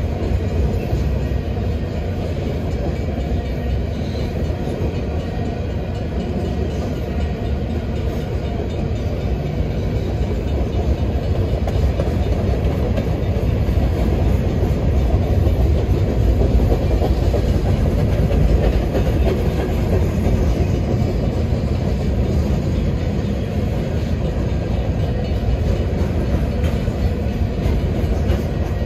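Freight train of covered hopper cars rolling past: a steady low rumble of steel wheels on the rails.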